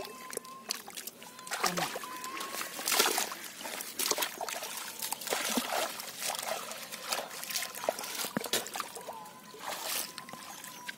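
Shallow muddy water sloshing and splashing in irregular bursts, stirred by a person's leg and hands.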